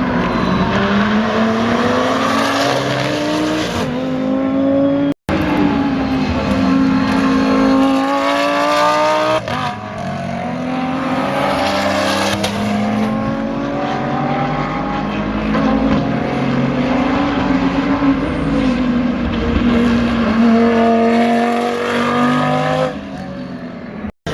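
Racing car engines at full throttle, the pitch climbing and then dropping back at each upshift, over and over.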